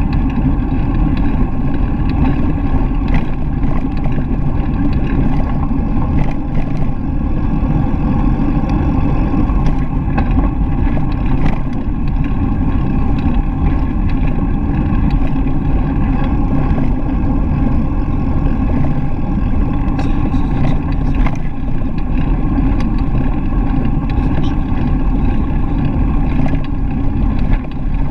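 Steady low rumble of a bicycle ride picked up by a GoPro: wind on the microphone and tyre noise on the paved path, with a few faint ticks from bumps.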